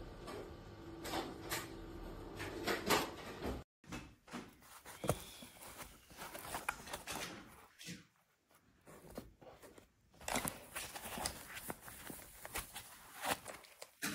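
Irregular clicks and knocks of small objects being handled. A low steady hum sits under the first few seconds and stops abruptly at a cut.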